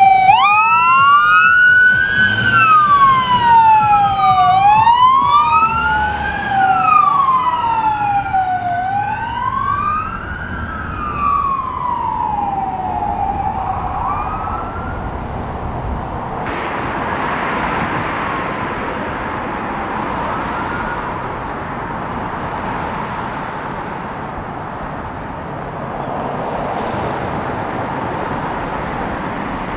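Electronic siren on a passing police box truck, a Ford Super Duty, wailing up and down in slow cycles of about four seconds and fading away after about fourteen seconds. After that comes steady traffic noise from cars driving past.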